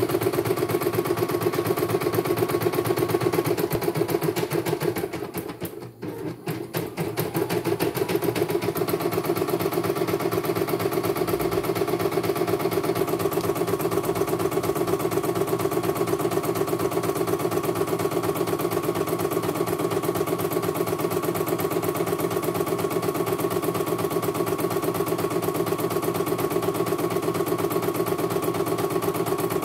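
CNY computerized embroidery machine stitching at speed, a fast even needle rhythm over a steady motor hum. About five seconds in it slows and goes quieter for a couple of seconds, then speeds back up to its steady stitching.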